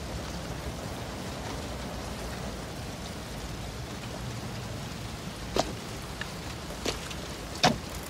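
Steady rain hiss with a low rumble underneath, broken by three short, sharp knocks in the last few seconds.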